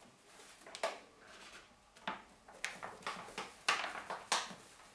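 Paper flour bag crinkling and rustling as flour is shaken out of it into a bowl, in a string of irregular crinkles, the loudest in the second half.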